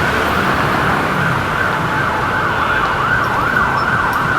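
Emergency vehicle siren in a fast yelp, its pitch sweeping up and down about three times a second over street traffic noise.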